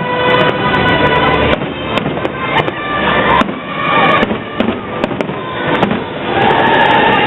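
Fireworks display going off: a dense run of pops, crackles and bangs, with music playing along underneath.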